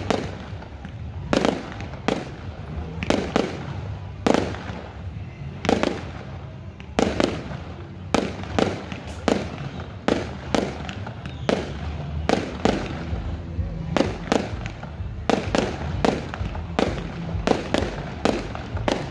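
Aerial fireworks display: a long, irregular series of sharp bangs from shells bursting overhead, often one to two a second and sometimes in quick pairs, each fading in a short echo over a low rumble.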